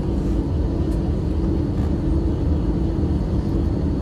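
Cabin noise of an Airbus A320-family airliner on its landing rollout: a steady low rumble of wheels and engines with a steady hum over it.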